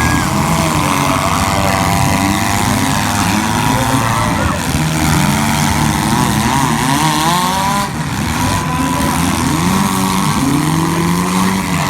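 Several four-cylinder demolition derby car engines revving at once, their pitches rising and falling and overlapping.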